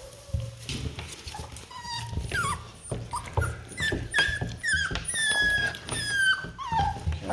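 Labradoodle puppies squealing and whimpering: a quick string of short, high-pitched cries that mostly slide down in pitch, getting busier from about two seconds in.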